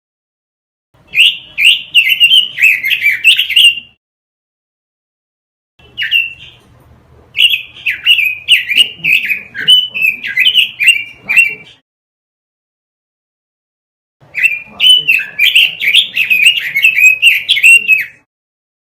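Pekin robin (red-billed leiothrix) singing: three phrases of quick, warbling whistled notes, each a few seconds long, separated by silent gaps.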